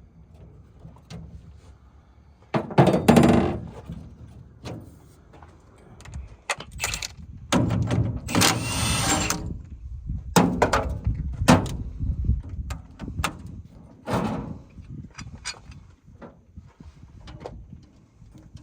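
Steel hand tools and a steering wheel puller clanking and knocking on metal as the puller is worked on a jeep's steering wheel and column. The knocks come irregularly, with one longer, denser noise of about two seconds around eight seconds in.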